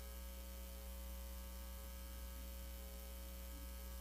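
Steady low electrical mains hum, with faint higher buzzing tones above it.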